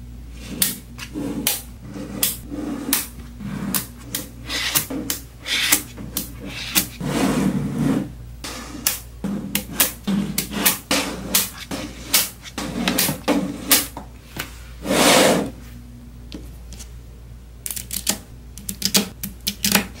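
Small neodymium magnet balls clicking and clacking as cubes and slabs of them are snapped together and pressed into place: irregular sharp clicks, with a couple of longer rattling scrapes, the loudest about fifteen seconds in.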